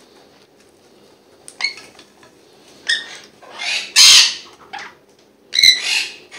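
Young conures squawking: a series of short, rasping calls that begin about a second and a half in, with the loudest about four seconds in.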